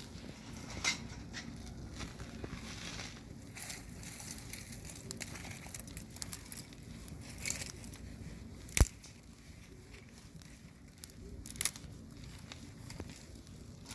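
Wood fire crackling, with scattered sharp pops over a low steady rush; the loudest pop comes about nine seconds in.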